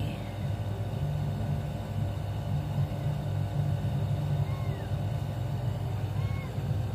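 A steady low hum, with two faint short high chirps in the second half.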